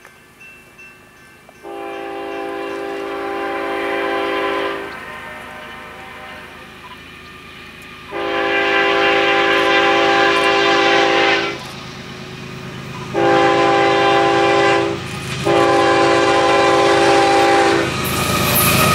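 Approaching freight locomotive's air horn sounding a several-note chord in the grade-crossing pattern: long, long, short, long. This is the warning for a road crossing ahead. The low rumble of the train grows under it and is loudest near the end.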